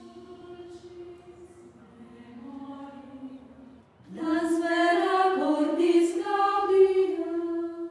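A choir of women's voices singing slow, held notes, likely a hymn. It starts soft and gets louder about four seconds in.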